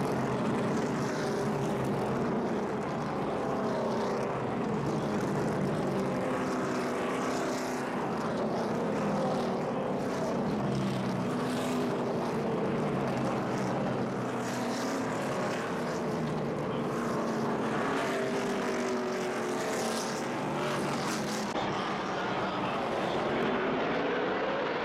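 NASCAR Sprint Cup stock cars' V8 engines running as the field passes close by: a steady, layered engine drone from many cars at once, their pitches sliding up and down as they go by.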